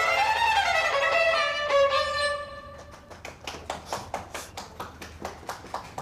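Two violins playing together, their lines gliding up and down, breaking off about two and a half seconds in. After that comes a steady run of soft taps, about three a second.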